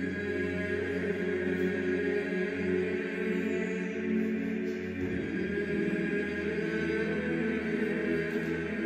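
Choral chanting with long held notes over a steady low drone, heard as background music.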